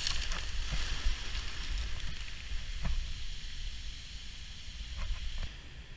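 Steady hiss of surf and fizzing sea foam, with wind rumbling on the microphone and a few soft footsteps squelching through the foam. The hiss thins a little near the end.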